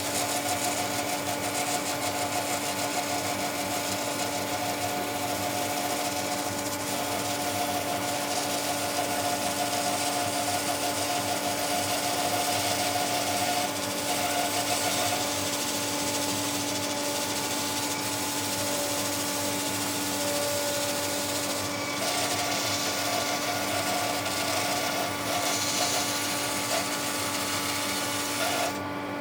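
An electric power tool runs steadily on wood, with a constant motor hum under a dense working hiss. Near the end the hiss drops away while the motor hum carries on.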